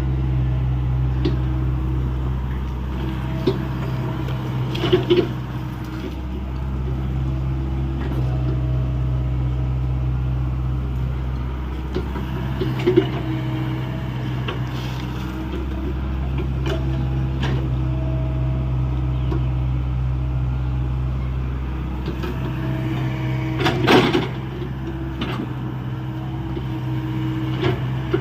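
Hyundai 85A excavator's diesel engine running steadily while it digs, its note dipping and recovering every few seconds as the hydraulics take load, with a few sharp metal clanks, the loudest near the end.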